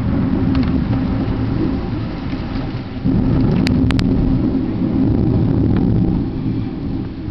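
Thunder rumbling during a heavy thunderstorm with rain, the rumble growing louder about three seconds in.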